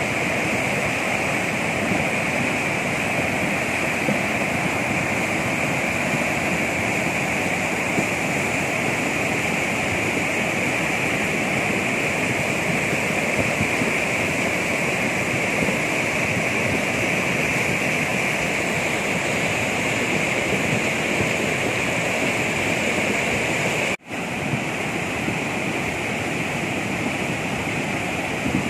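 Steady loud rush of a mountain river in spate after a cloudburst, muddy floodwater churning and breaking over boulders. The sound drops out for an instant near the end and comes back slightly quieter.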